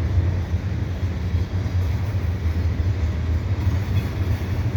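Double-stack freight train cars rolling past, a steady low rumble.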